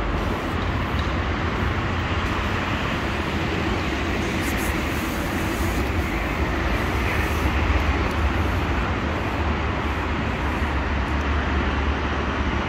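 Steady low outdoor background rumble with a hiss over it, with no distinct event standing out.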